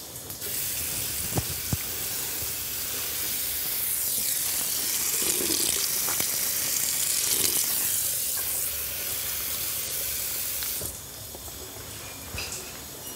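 Tap running steadily into a bathroom sink while a man washes bent over the basin, then shut off near the end.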